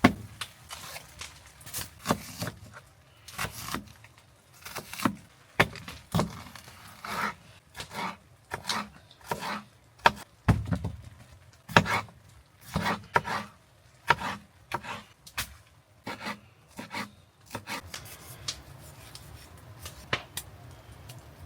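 Knife chopping vegetables on a cutting board: sharp, irregular chops about one or two a second, stopping near the end.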